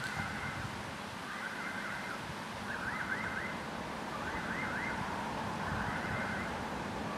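An electronic warning signal repeating a short warbling tone about every one and a half seconds, typical of a railway crossing alarm for an approaching train. A low rumble from the approaching DR1A diesel multiple unit runs underneath.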